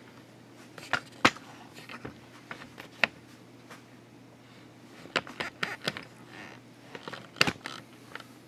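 Handling noise from a handheld camera: irregular sharp clicks, knocks and rubbing. The loudest come about a second in, near three seconds, in a cluster around five to six seconds, and at about seven and a half seconds, over a faint steady hum.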